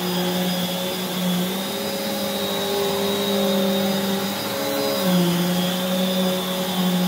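Prolux X8 Elite backpack vacuum running with its EBK360 power nozzle on carpet: a steady motor hum with a high whine, dipping slightly in pitch twice.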